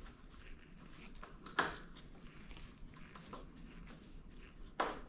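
Windshield mounting screws being tightened by hand: faint scraping and small ticks, with two sharper clicks about a second and a half in and near the end.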